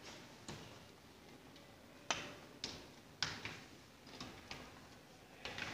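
Plastic packet crinkling as it is handled, with a few sharp crackles at irregular intervals.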